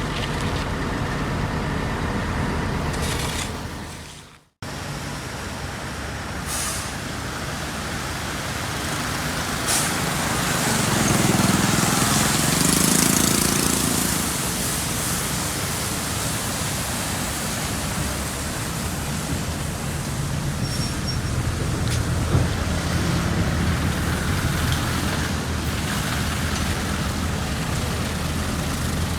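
Heavy diesel road-paving machinery and trucks running steadily with a hissing, rumbling engine noise. The sound drops out sharply about four and a half seconds in, then resumes, and swells with a wavering engine note a few seconds later.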